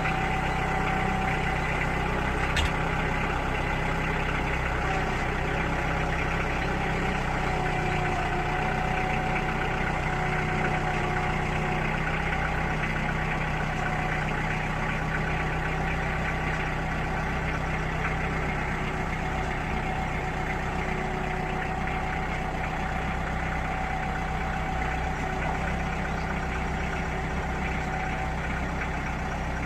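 Tractor engine running steadily at idle, with a single sharp click about two and a half seconds in.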